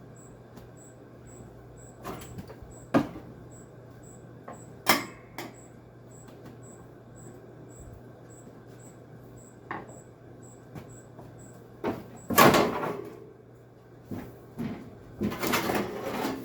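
Scattered knocks and clunks of a 1985 White-Westinghouse window air conditioner's metal parts being handled during disassembly, with the loudest rattling clatter about twelve seconds in and more near the end.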